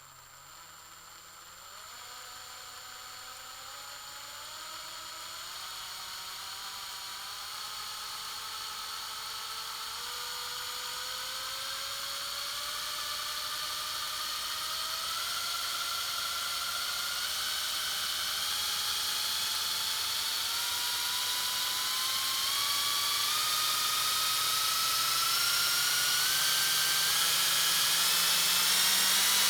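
Medium-sized electric drill spinning up over a long stretch: its motor whine climbs slowly and steadily in pitch, in small steps, and grows steadily louder.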